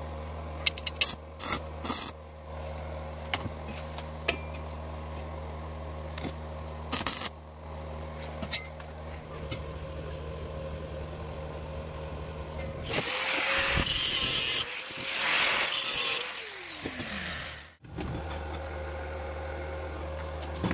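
Galvanized steel tube handled on a steel workbench: scattered clicks and knocks of metal on metal over a steady low hum. About two-thirds of the way in, a power tool grinds or cuts the metal loudly for a few seconds, its pitch falling as it winds down.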